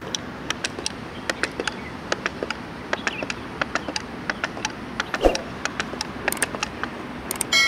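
Wooden walking dinosaur toy waddling down a sloping wooden board, its swinging wooden legs clacking on the board in a quick, irregular patter of light clicks. One louder thump comes about five seconds in.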